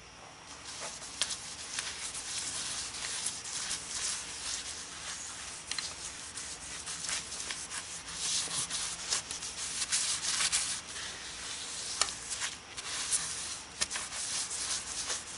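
Sandpaper hissing against a redbud bowl spinning on a wood lathe, with a steady rasping hiss and many small scratchy flicks.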